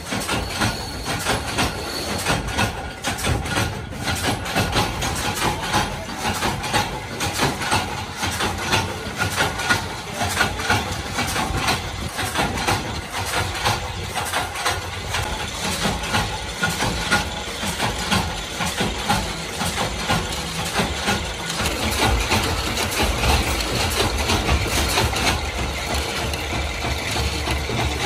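Screw-shell forming machine running with a steady, fast metallic clatter from its gears and feed mechanism and a low hum underneath. Near the start, loose metal shells clink as they are tipped into its feed hopper.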